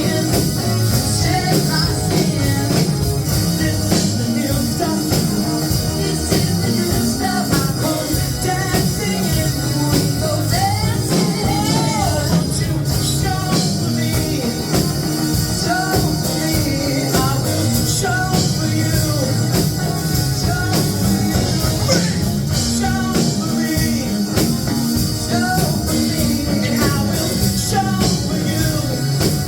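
Rock-style music with a singing voice over a steady drum beat.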